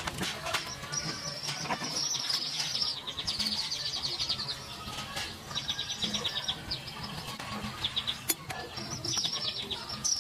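Small birds chirping and twittering repeatedly in quick high trills, with a few sharp clicks in between.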